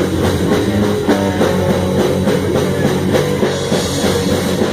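Live black metal band playing an instrumental passage between vocal lines: distorted electric guitars and bass with fast drumming on a drum kit.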